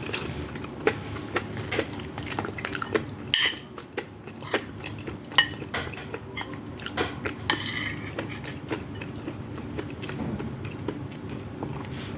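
Cutlery clicking and clinking against a plate, a few strikes ringing briefly, with biting and chewing noises between them as food is eaten close to the microphone.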